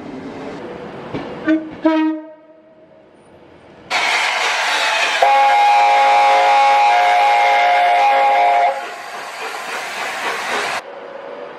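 Two short train horn toots about a second and a half and two seconds in. Then a loud passing train with a long horn blast of several tones sounded together, held for about three and a half seconds, the train noise cutting off abruptly near the end.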